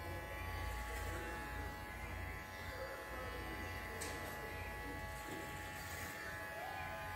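Electric hair clippers buzzing steadily at a constant pitch as they cut short hair close to the scalp.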